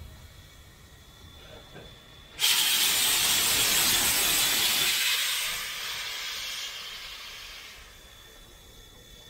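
Steam locomotive blowing steam from its open cylinder drain cocks: a sudden loud hiss starts about two and a half seconds in, holds for a couple of seconds, then fades away.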